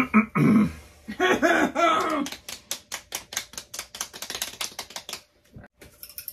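A hand rapidly patting and slapping a bald head: a quick run of light smacks, several a second, that stops about a second before the end. It comes after two short vocal outbursts near the start.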